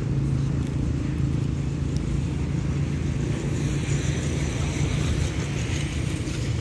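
A steady, low engine drone.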